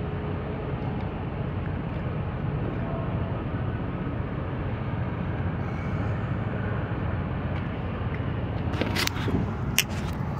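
Steady low rumble of an idling engine. A few sharp handling knocks come near the end.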